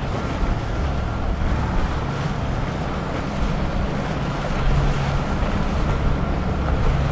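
Quad Mercury Racing 450R supercharged V8 outboards running steadily at low cruising speed, a low engine hum under the wash of water along the hull. Wind noise on the microphone.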